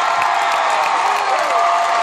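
Large arena crowd cheering and applauding, with whoops gliding up and down above the steady noise of the crowd.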